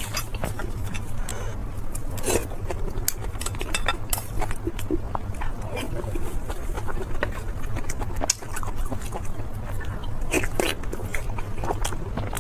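Close-miked eating sounds: chewing and biting, with irregular crisp clicks and crunches over a steady low hum.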